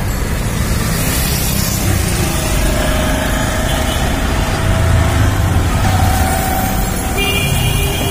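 Dust-storm wind buffeting the microphone over steady street traffic, with motorbikes and auto-rickshaws passing close by. A few faint short tones sound midway and near the end.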